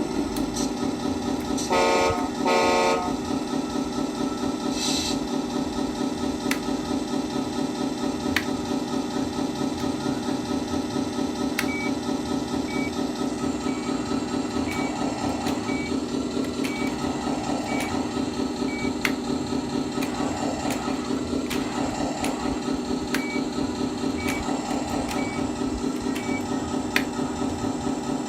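Scania 620 truck engine idling steadily just after starting, with two short horn blasts near the start. Later, a short high beep sounds about once a second for several seconds, pauses, then resumes.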